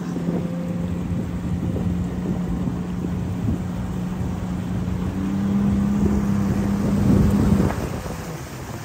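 Jet ski engine running at a steady low cruising speed, a constant drone with water and wind noise. The engine note rises slightly about five seconds in, then drops away near the end.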